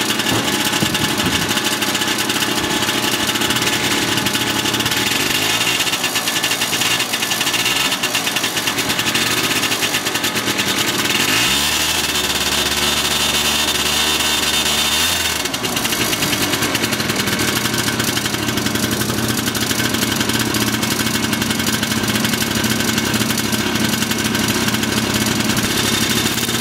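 Yamaha Jog CG50's 50cc two-stroke single-cylinder engine running at a steady idle while it warms up after a hard start, its revs still slow to pick up. About eleven seconds in the engine speed rises, holds for about four seconds, then falls back to idle.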